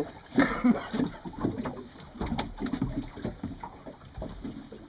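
Small boat drifting on open water: irregular low slaps and small knocks, with a faint steady background noise.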